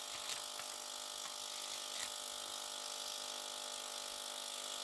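Ultrasonic cleaner running with eyeglasses in its water bath during its five-minute cleaning cycle: a steady, even buzz made of many tones.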